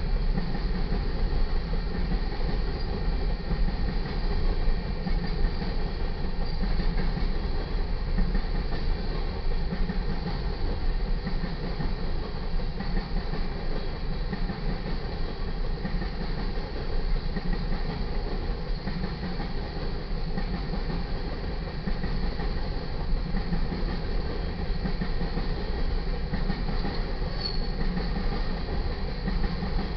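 Empty coal hopper cars of a freight train rolling past at steady speed: a continuous rumble and clatter of steel wheels on the rails.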